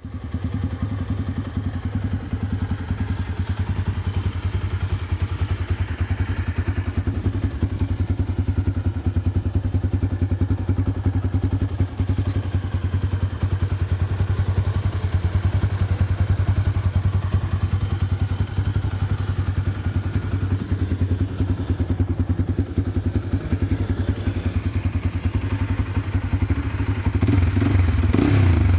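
Bajaj Pulsar 200NS single-cylinder engine running at idle through an aftermarket dual-outlet full-system exhaust, a steady, rapid pulsing exhaust note. It grows a little louder near the end.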